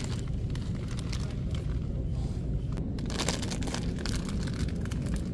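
Plastic instant-ramen packets crinkling as they are pulled off a shelf and handled, with a cluster of crinkles about three seconds in, over a steady low rumble.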